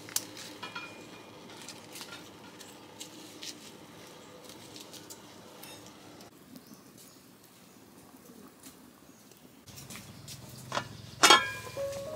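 Faint background with scattered small ticks, then near the end a single loud, sharp clank of metal cookware.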